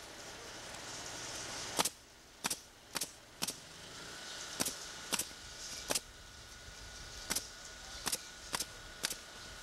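Pneumatic roofing nail gun firing nails into asphalt shingles: about eleven sharp shots at uneven intervals, roughly half a second to a second and a half apart.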